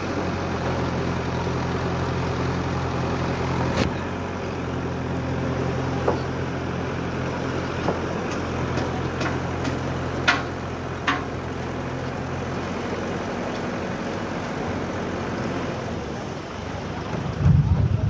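JCB 3DX backhoe loader's diesel engine running steadily as the backhoe arm works, with a few sharp knocks scattered through. The engine hum fades about two thirds of the way through, leaving a steady rush of water and wind, and a brief low rumble comes near the end.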